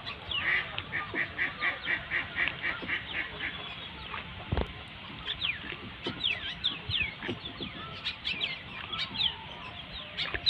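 Birds calling. A quick run of about ten repeated calls comes in the first three seconds, then many short falling chirps. There is a single brief knock midway.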